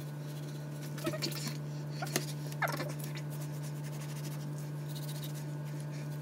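A dog whines briefly, about a second in and again at about two and a half seconds, the second whine rising steeply in pitch. Under it a kitchen knife slices a raw fish fillet on a plastic cutting board with a few soft clicks, over a steady low hum.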